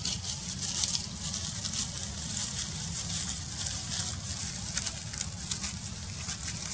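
Dry leaves and straw crackling and rustling in many quick small ticks as a newborn macaque squirms on them, over a low steady rumble.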